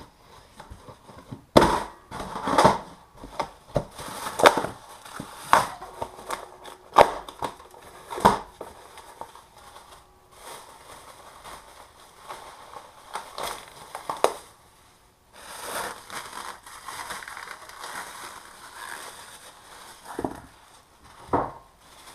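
Cardboard shipping box being cut and torn apart in a string of loud, sharp rips and cracks, then plastic wrapping and styrofoam being pulled off with a rustling crinkle, and two knocks near the end.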